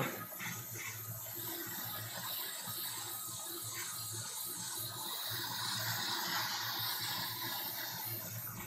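Hot air rework station blowing a steady hiss of hot air onto a laptop logic board chip during a reflow.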